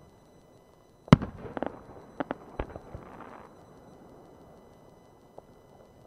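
Aerial firework shells bursting: one loud bang about a second in, followed by a scatter of sharper pops and cracks over the next two seconds, then a single faint pop near the end.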